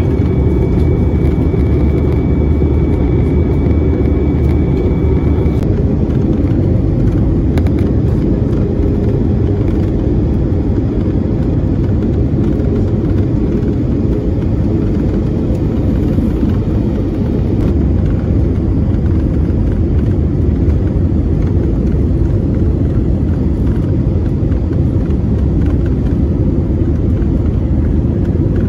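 Airbus A320-232 cabin noise at a window seat: the IAE V2500 engines and the airflow past the fuselage make a steady, deep rumble. A faint high tone stops about five and a half seconds in.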